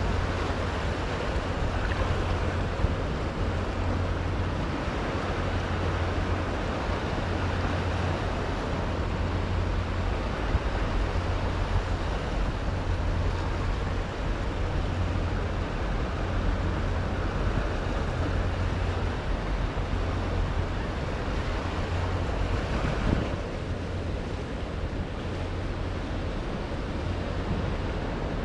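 Small ocean waves breaking and washing over a rock shelf, a steady surf wash, with wind on the microphone adding a low rumble.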